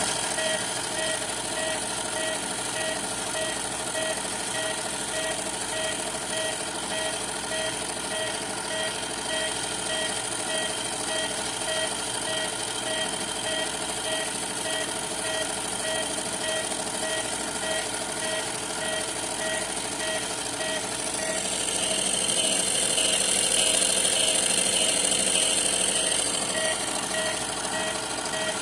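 Washing machine in its spin cycle, running steadily with a regular pulsing tone, making the strange noise it has while spinning. About three quarters of the way through, a louder hiss joins for several seconds.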